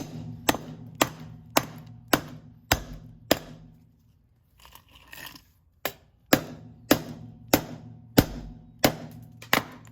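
Repeated hard blows on a Krate Tactical OTF knife under deliberate abuse, about two strikes a second in two runs of about seven, with a short pause between them.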